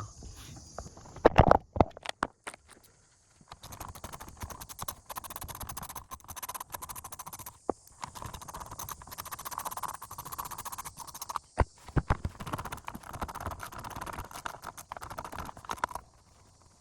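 Hand ratchet clicking in quick runs as it undoes the four fasteners holding a car taillight, with short pauses between runs and a couple of louder knocks near the start.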